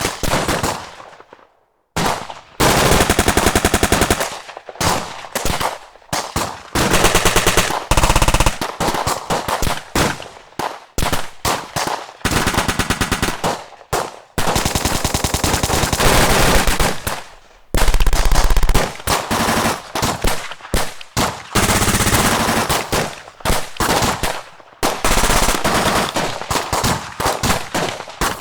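Battle gunfire sound effects: rapid machine-gun bursts mixed with single shots, coming in dense runs a few seconds long with short breaks between them.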